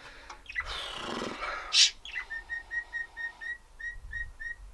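Pet bird chirping a run of about ten short notes at one steady pitch, a little over four a second, starting about two seconds in. Before it comes a brief breathy hiss.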